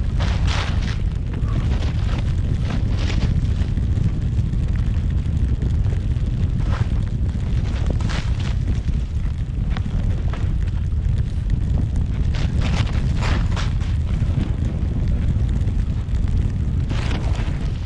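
Wind buffeting the pole-mounted camera's microphone in a steady low rumble while skiing through deep powder, with short bursts of hiss every few seconds as the K2 Marksman skis turn and throw up snow.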